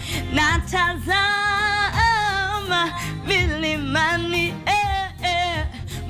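A woman singing a Swahili gospel song over backing music, holding long wavering notes and sliding through runs without clear words.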